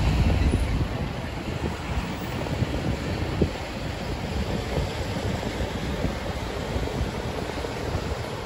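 Wind buffeting the microphone on a moving motorcycle, with a steady rumble of road and vehicle noise underneath and one short knock about three and a half seconds in.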